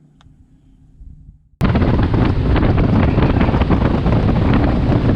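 Loud wind buffeting the microphone of a fishing boat running at speed across the water. It cuts in suddenly about a second and a half in, after a faint low hum.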